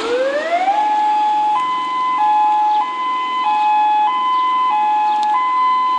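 Two-tone emergency warning siren sounding an alert: it winds up in pitch over the first second, then switches back and forth between a lower and a higher tone about every half second, over a steady low drone.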